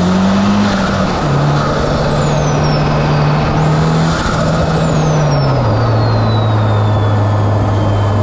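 Turbocharged 2.4-litre four-cylinder car engine pulling under acceleration: its note rises, drops at a gear change about a second in, holds steady, then falls as it eases off about five and a half seconds in. Road and wind noise runs throughout, and a high whistle rises and falls twice.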